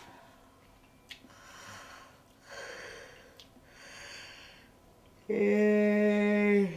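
An elderly man breathing heavily three times, then letting out a loud, long voiced 'aah' held on one pitch for about a second and a half, cut off near the end with a short drop in pitch.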